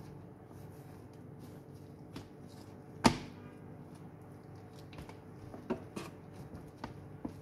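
Chef's knife cutting raw chicken breast into strips, the blade knocking against the cutting board: one sharp, loud knock with a brief ring about three seconds in, then a few lighter taps.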